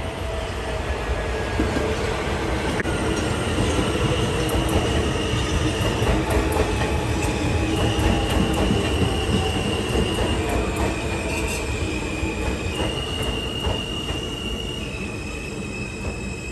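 New York City subway train running on the N line, its wheels squealing in a series of held high tones that step up and down in pitch, over a steady rumble from the train.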